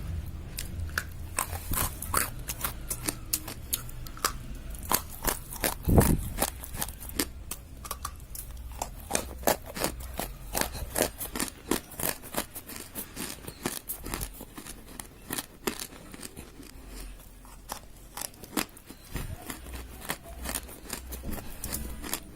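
Dry rose clay crumbling and crunching: a dense run of sharp crackles and snaps, with one heavier crunch about six seconds in.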